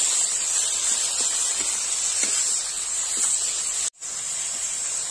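Masala paste and sliced tomatoes sizzling in hot oil in an iron kadai, a steady hiss with a few light scrapes of a metal spatula. The sound cuts out for an instant about four seconds in.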